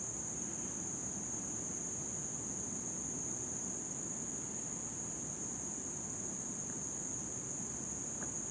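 Insect chorus in summer woodland: a steady, unbroken high-pitched buzz over a low, even rush.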